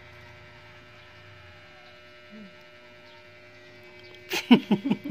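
Steady electrical hum made of several fixed tones, then about four seconds in a person's voice starts up loudly over it.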